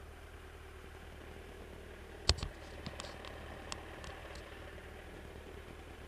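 Motorcycle engine and tyres on a gravel road, a steady low drone. About two seconds in there is a sharp click, then a few lighter ticks over the next two seconds, such as loose gravel flicked up against the bike.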